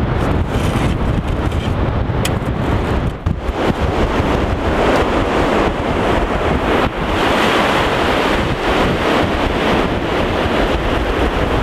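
Sea surf washing up a gently sloping beach at low tide, with wind rumbling on the microphone. The sound is steady and continuous, with no distinct single events standing out.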